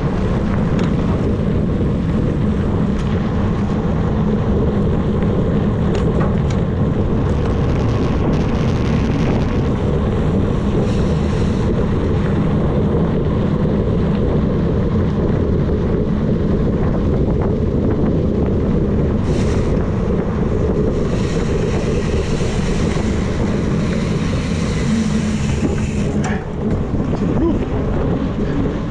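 Steady wind rush buffeting the microphone, over the low rumble of a knobby mountain-bike tyre rolling along a dirt road at riding speed.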